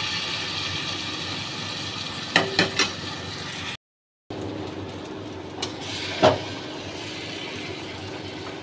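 A metal ladle clinks and scrapes against a steel plate as curry is served: a few quick taps about two and a half seconds in and one more knock a little after six seconds. Under it runs a steady kitchen hum, broken by a short dead gap just before four seconds.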